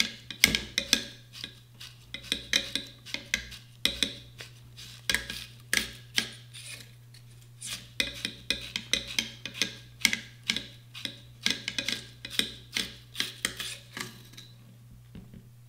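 Chamber brush on a cleaning rod scrubbing inside an AR-15's chamber, scraping and clicking against the metal of the locking lugs and receiver to break loose carbon fouling. The strokes come irregularly, several a second, and stop shortly before the end.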